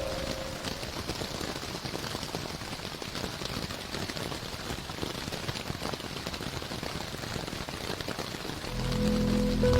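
Steady rain sound effect: an even hiss of rain falling on a surface. Sustained, slowed ambient music tones fade out at the start and low tones swell back in near the end.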